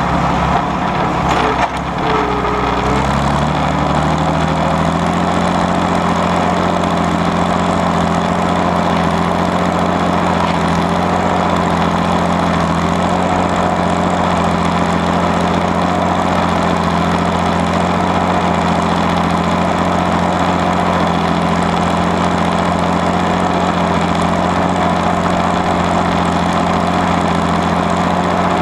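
Allis-Chalmers WD45 diesel tractor's six-cylinder engine working as it pulls a rollover plow. In the first few seconds the engine note climbs as it takes up the load, then it holds a steady pull.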